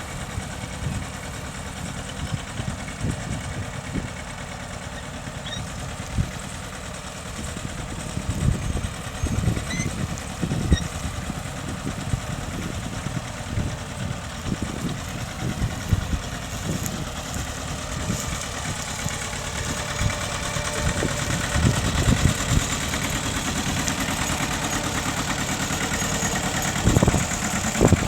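Mitsubishi tractor engine running steadily while ploughing, getting louder toward the end, with irregular low thumps.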